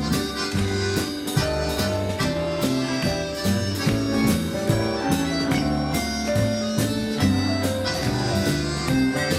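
Instrumental music without singing: a melody over bass and chords with a steady beat.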